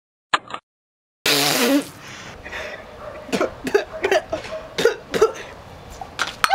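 A woman coughing and sputtering after a swig of beer she dislikes: one loud, noisy burst about a second in, followed by a run of short coughs.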